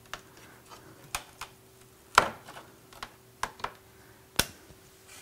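Sharp clicks and knocks of a plastic front lip spoiler as it is worked free of a car's front bumper, about seven in all, the loudest a little over two seconds in.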